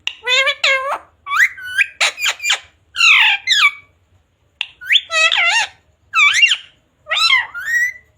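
Pet parrot calling in a string of short, loud squawks and chatter that slide up and down in pitch, with brief pauses between phrases.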